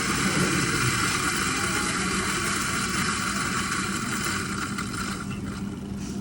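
Eureka Mignon electric coffee grinder motor running steadily, a continuous whirring hum with grinding noise, dying away near the end.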